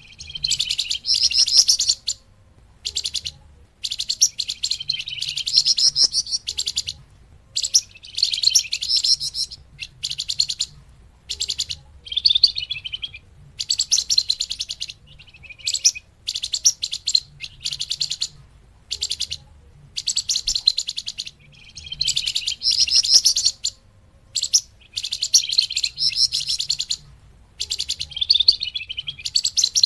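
Flamboyan bird calls from a bird-lure recording: bursts of rapid, high chattering chirps, each burst a second or two long, repeated with short pauses between them.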